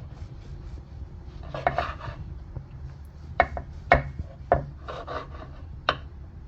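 Knife sawing through baguette slices on a cutting board: short rasping strokes through the crust, with a few sharp taps of the blade striking the board.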